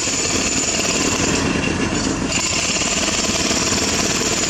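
Heavy diesel engine of construction machinery running steadily under load, with a fast, even rattle and a high hiss that drops out briefly about two seconds in.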